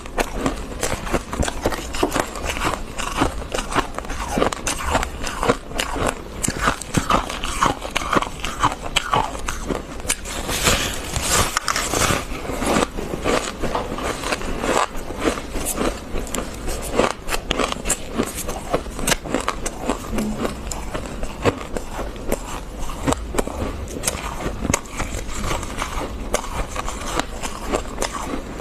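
Fluffy freezer frost being scraped and bitten, a dense run of crisp crunches, with a louder rasping stretch about ten seconds in.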